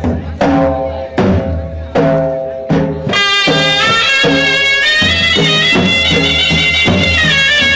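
Gujarati folk music for a raas dance: a steady drum beat under a repeating melody, with a high, reedy held melody line coming in about three seconds in.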